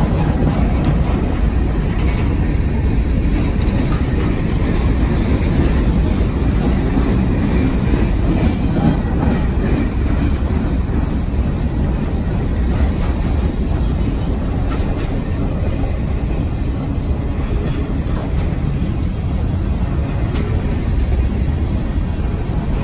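CSX freight train's cars rolling past close by: centerbeam flatcars, boxcars and a tank car, with a steady rumble of steel wheels on the rails.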